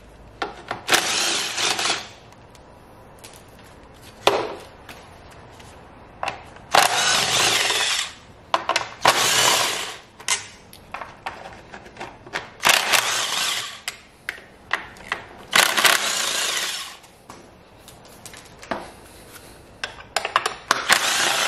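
Handheld power tool spinning out the 8 mm bolts that hold the intake pipe on a Ford Ranger diesel engine. It runs in about seven short bursts of a second or so each, with small metallic clicks between the bursts.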